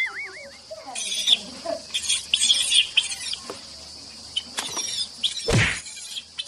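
Birds chirping, many short high calls scattered throughout. A brief wavering whistle-like tone right at the start, and one loud sweep falling from high to very low pitch about five and a half seconds in.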